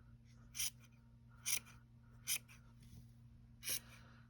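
Scissors snipping through brushed-out acrylic yarn, four short crisp cuts at uneven intervals as a crochet gnome's beard is trimmed into shape.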